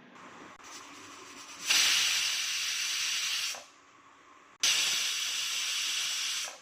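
Pressure cooker's weight valve lifting and venting steam: two hissing whistles of about two seconds each, after a faint hiss. The whistles mark that the cooker is at full pressure, the count by which the cooking is timed.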